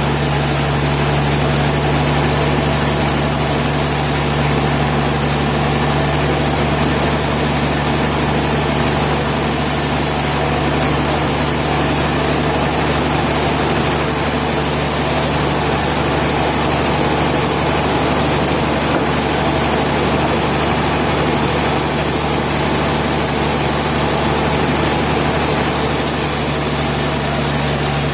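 A steady low mechanical hum, like an engine or machine running without change in speed or level.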